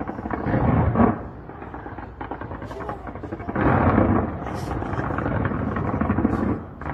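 Fireworks display: a continuous barrage of shell bursts and crackling with a low rumble, swelling louder about a second in and again around the middle.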